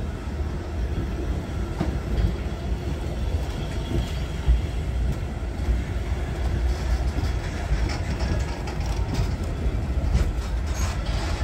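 Vintage wooden passenger coaches rolling slowly by, a steady low rumble with wheels clacking over rail joints and a few sharper clicks near the end.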